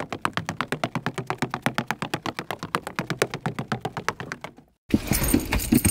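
Rapid, perfectly even clicking, about nine clicks a second, that stops suddenly near the end. A burst of noise with low thumps follows.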